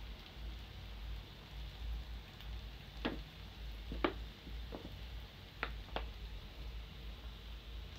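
Churro dough deep-frying in a pan of hot oil: a steady sizzle, with five short sharp pops in the middle.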